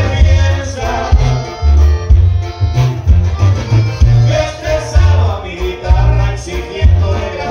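Live regional Mexican band music through a concert PA. A tuba pumps a rhythmic bass line under accordion and guitar, with a singer.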